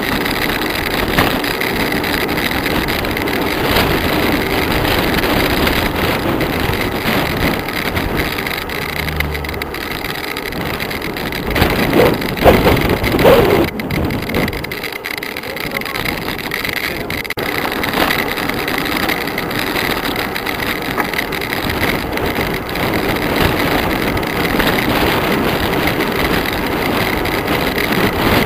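Wind rushing over the microphone on a fast bicycle descent down a mountain road, a steady loud roar of air with stronger gusts about twelve to fourteen seconds in.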